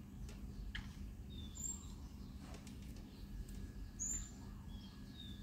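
Faint bird calls: a short, high chirp repeating every two to three seconds, with a few lower short notes between, over a low steady hum.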